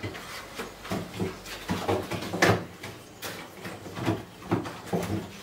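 Plastic dessert packs being put away on refrigerator shelves: a run of irregular light knocks and clatters.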